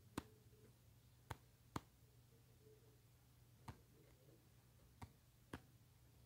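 Six sharp taps on a touchscreen, unevenly spaced, over a faint steady hum.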